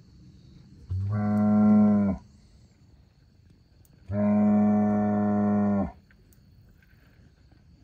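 Black Angus bull bellowing twice at close range. The first low, steady call starts about a second in and lasts just over a second. A longer, even call of nearly two seconds follows about four seconds in.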